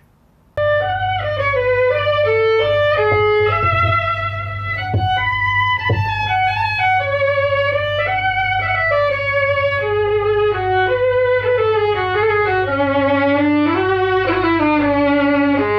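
Violin played with the bow, a flowing melodic passage of connected notes that begins about half a second in, over a steady low hum.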